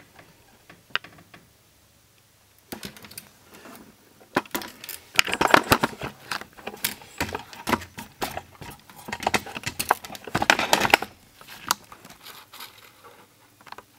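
Irregular clicking and rattling of small hard objects being handled and moved on a workbench, in bursts with short quiet gaps.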